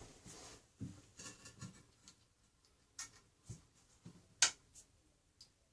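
Scattered light clicks and knocks from handling toilet parts during reassembly, with a single sharp click about four and a half seconds in.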